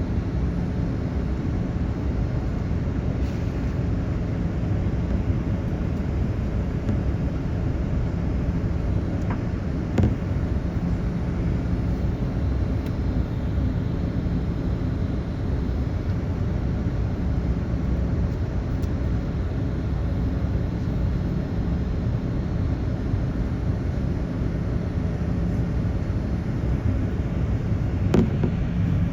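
Steady in-flight cabin noise aboard a Boeing 787 airliner: a low rumble of engines and airflow with a faint steady hum, broken by two brief clicks.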